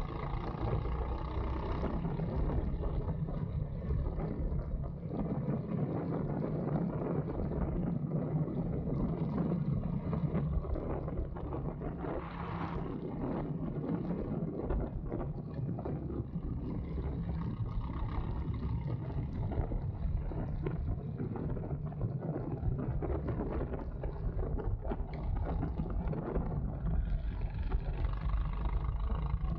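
Go-kart running on a track, heard from a camera on board: a steady motor drone that rises and falls little, with wind noise on the microphone.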